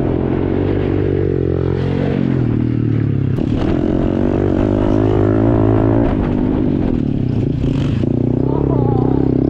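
Small single-cylinder four-stroke pit bike engine running, its pitch rising and falling with the throttle.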